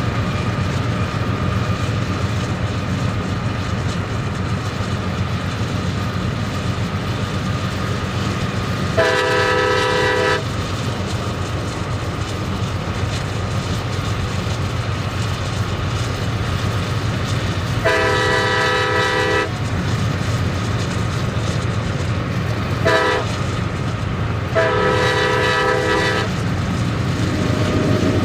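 Freight train locomotive's multi-note air horn sounding two long blasts, a short one and a long one, the grade-crossing warning. Under it is the steady rumble of the train rolling along the track.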